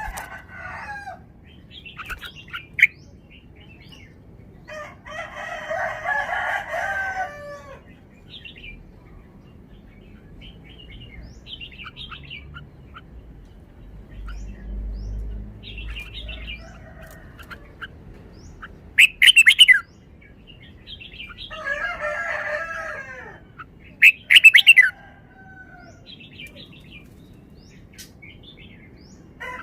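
Red-whiskered bulbul singing in short, varied whistled phrases separated by pauses, with scattered chirps and a few louder, sharp notes in the second half.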